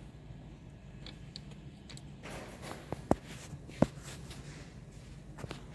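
Two sharp metallic clicks about a second apart, from tools and parts being handled while a plastic engine cover is unbolted, with faint handling noises over a steady low hum.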